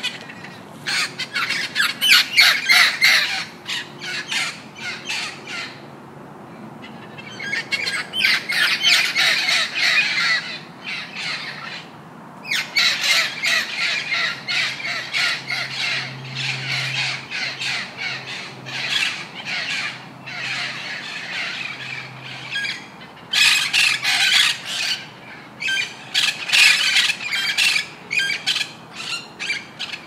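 Macaws squawking in four harsh bouts of rapid, repeated calls, each lasting a few seconds, with short lulls between them.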